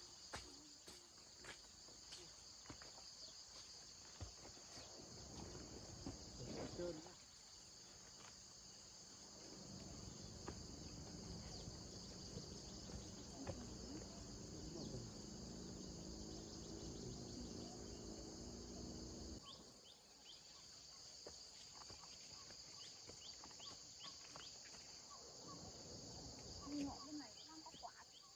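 Faint, steady high-pitched chorus of insects droning without a break. A low rustling noise rises from about a third of the way in and stops suddenly about two-thirds through.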